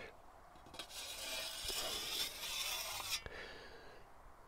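Ceramic honing wheel on a wooden holder rolled along the edge of a steel scythe blade, honing the secondary edge by friction as the wheel turns only slightly. One hissing scrape runs from about a second in to about three seconds, ending with a small click.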